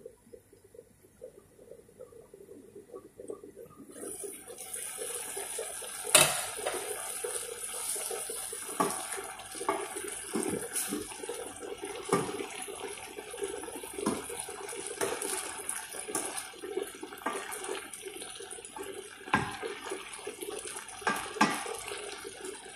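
Pakbet of vegetables and shrimp simmering and sizzling in a stainless-steel pan, a steady hiss that starts about four seconds in, while a wooden spatula stirs it, scraping and knocking against the pan now and then.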